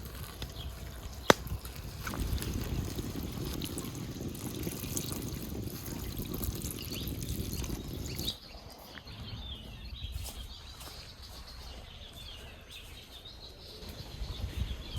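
A sharp click, then water trickling for about six seconds that cuts off abruptly; small birds chirp in the last few seconds.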